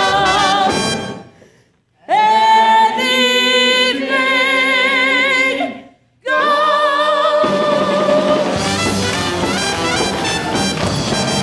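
A stage-musical cast singing a show-tune finale over a brass-led pit band. The chorus holds two long chords with vibrato, each cut off sharply into a brief silence, and then the band plays on.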